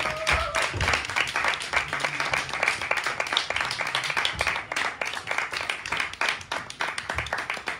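Small audience applauding, many hands clapping at once.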